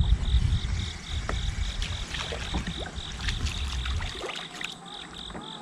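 Water splashing and sloshing at a kayak's side as a hooked warmouth thrashes at the surface while it is reeled in, with scattered light clicks and taps from the rod and reel. A low rumble in the first few seconds dies away.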